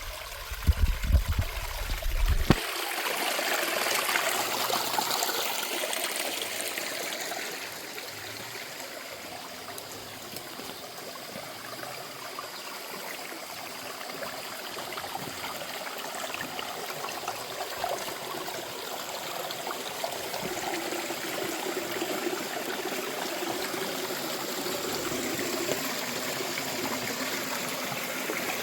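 Mountain stream water running steadily, an even rush. A few loud low thumps come in the first two seconds or so.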